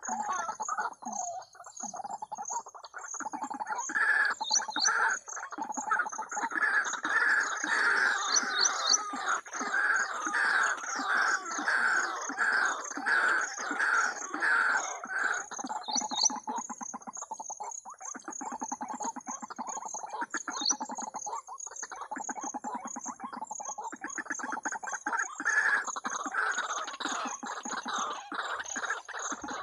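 Recorded waterhen calls played as a lure through a small portable Bluetooth speaker: a long run of repeated calls, about two a second, loudest in the first half, over a high rapid chirping.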